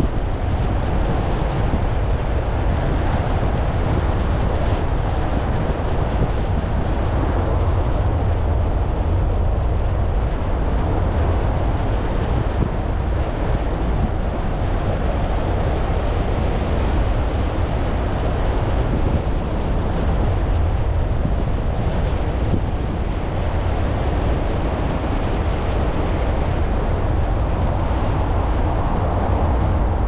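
A car driving: steady tyre rumble and wind noise, heaviest in the low end, with no sudden events.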